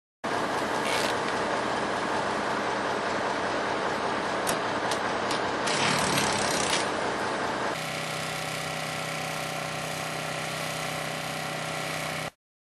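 Truck engine idling steadily, with a few sharp clicks and a brief noisy rush just past the middle. About 8 s in the hum drops a little and settles into a steadier tone.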